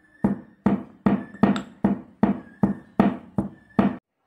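Stone pestle pounding fresh mint leaves in a stone mortar: a steady run of dull thuds, about three a second, stopping near the end.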